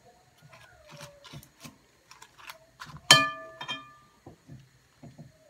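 Metal kitchen utensil clicking and knocking in a frying pan as fried green beans are lifted out. About three seconds in comes one loud ringing clink, then a smaller one just after.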